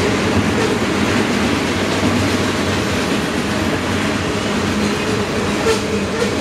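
Freight train of tank cars rolling past at speed: a steady rumble of steel wheels on rail with a few clicks as the wheels cross rail joints.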